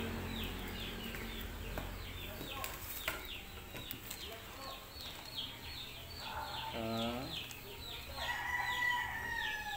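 Chickens in the background: a steady run of short, high, descending peeps, about four a second, with a brief rising call about seven seconds in and a long, held rooster crow near the end. Plastic packaging crinkles now and then.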